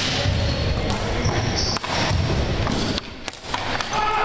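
Floor-hockey warmup play in an echoing gym: scattered knocks and thuds of ball, sticks and feet on the hard floor, with a few short high squeaks about a second and a half in.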